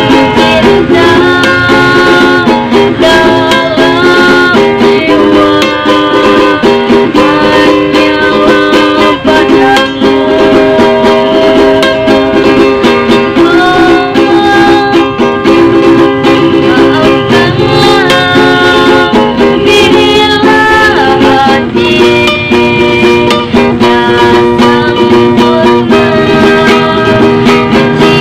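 A song played with ukulele accompaniment, the ukulele's plucked and strummed chords running steadily under a melody.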